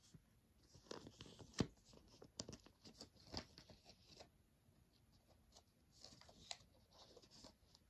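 Faint rustling and a few soft ticks of a Pokémon trading card being worked into a plastic card sleeve.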